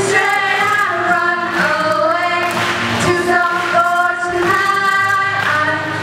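Young female voices singing a song together with held, gliding notes over an acoustic guitar, amplified through a live PA.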